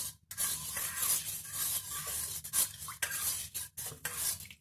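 Metal spoon stirring lemon-sugar water in a stainless steel pan, scraping and clinking against the pan, with brief pauses between strokes.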